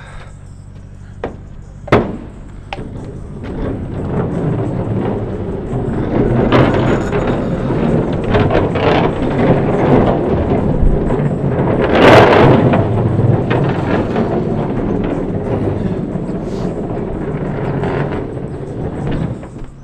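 Longboard wheels rolling over rough pavement, a loud rumble that builds from about four seconds in, is loudest near the middle and drops off at the end, with one sharp knock about two seconds in.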